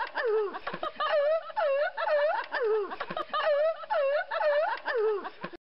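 A looped, filtered sound clip of sweeping pitched tones, the same pattern repeating about every second and a bit; it cuts off suddenly just before the end.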